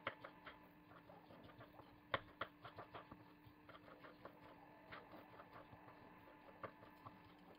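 Kitchen knife blade knocking faintly and irregularly on a wooden cutting board while dicing soft peeled peaches, the sharpest knock about two seconds in, over a faint steady hum.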